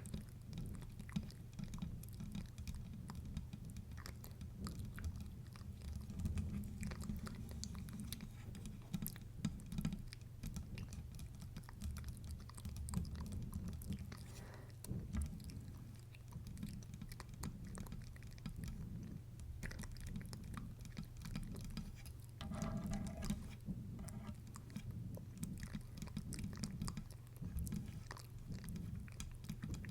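Close-miked mouth clicks and fingertip tapping on a microphone's base: a dense, irregular stream of small wet clicks over soft low thuds.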